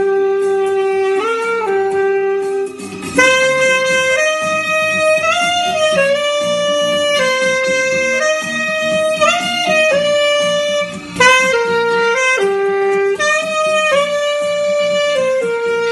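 Alto saxophone playing a slow melody of held notes that step up and down, with short breaks for breath about three seconds and eleven seconds in.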